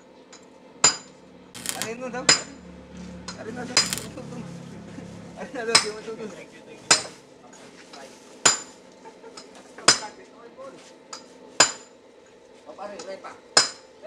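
Metal striking metal: sharp clanks that ring brightly, about ten of them spaced irregularly a second or two apart.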